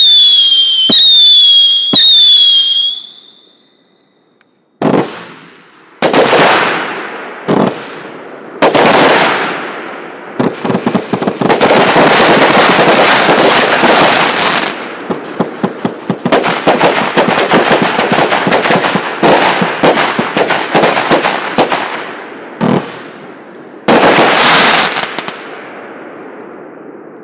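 A 120-shot, 0.8-inch fireworks cake (Шедевр, PKU4500) firing. First come three shots about a second apart, each with a falling whistle, then a short pause. Then come separate bangs, a long dense run of rapid crackling shots, and one last loud burst near the end.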